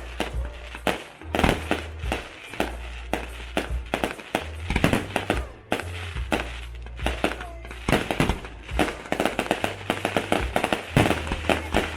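A fireworks display going off: a rapid string of bangs and crackles, coming in quick clusters and thickening near the end.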